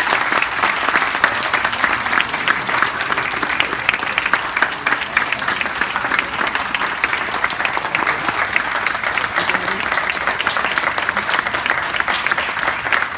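Audience applauding: many hands clapping steadily, with some voices mixed in.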